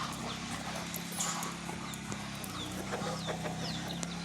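Short chirping bird calls, many quick falling chirps, over a steady low hum.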